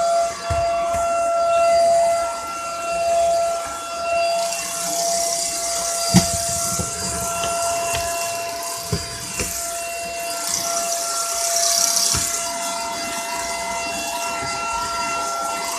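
Dirt Devil Powerstick 4-in-1 stick vacuum running with a steady high motor whine and a rushing hiss of air, picking up dirt. There are a few sharp knocks along the way.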